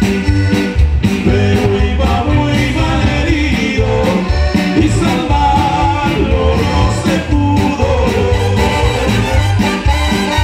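Live band music: electric guitar, keyboards and drum kit playing a corrido with a steady beat, and a male singer over it.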